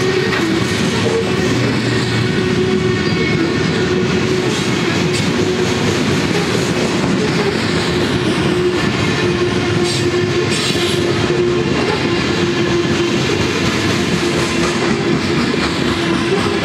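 Freight train of covered hopper cars rolling past: a steady rumble with the clickety-clack of wheels over the rail joints, and a steady tone running underneath.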